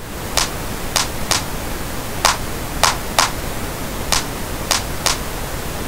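Steady pink noise playing as a reference bed, with a drum-machine clap sample hitting nine times over it in a repeating pattern, some of the hits in quick pairs. The clap is being EQ'd against the noise so that its over-prominent frequency band stops sticking out.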